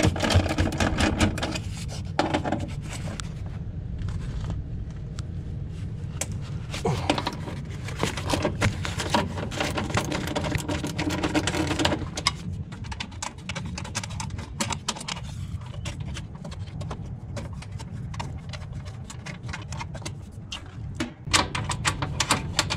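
Ratchet wrench clicking and hand tools clinking on sheet metal as bolts and screws on a rooftop unit's blower motor mounting are loosened, over a steady low rumble.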